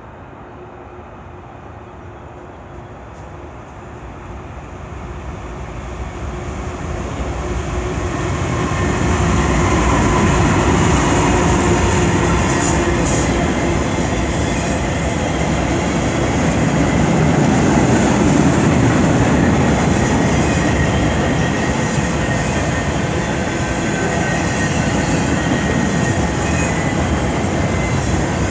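CN train approaching, growing steadily louder over the first eight or nine seconds, then passing close by with a steady rumble of wheels on the rails and a faint high wheel squeal.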